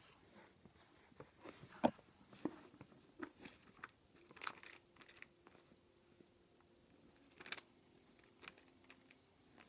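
Faint handling noise: scattered clicks and crinkly rustles, with a sharper click about two seconds in and others near the middle and toward the end.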